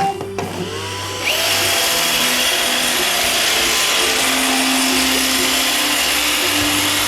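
iRobot Roomba 552 robot vacuum starting to clean: its motors spin up with a rising tone, and about a second in the vacuum and brushes come on with a loud, steady whirring that runs on.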